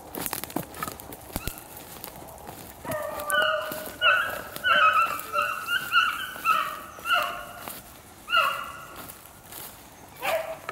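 Pack of beagles baying while running a rabbit, a string of drawn-out bays from about three seconds in and a few more near the end.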